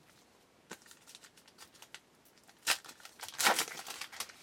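A few light clicks of cards being handled, then a trading-card pack wrapper torn open by hand: loud crinkling and tearing starting near the middle and carrying on to the end.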